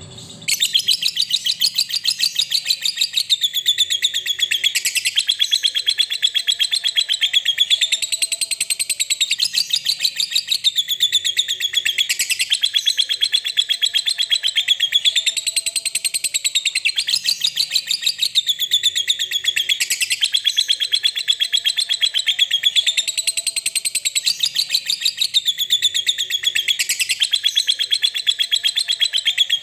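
Lovebird giving a long, unbroken 'ngekek' chatter: a fast, shrill trill of rapidly repeated notes that rises and falls in pitch every couple of seconds. It starts abruptly about half a second in.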